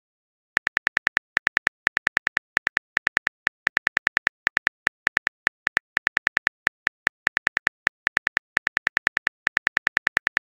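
Phone keyboard typing sound effect: rapid, even clicks, about seven a second, in short runs with brief pauses, starting about half a second in as a text message is typed out.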